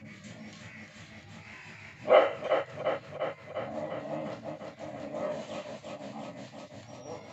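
A dog barking: one loud bark about two seconds in, then a run of further quick barks.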